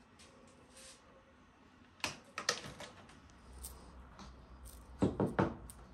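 Wire cutters snipping through a wire-mesh grilling basket: sharp metallic clicks, a few about two seconds in and three louder ones about five seconds in.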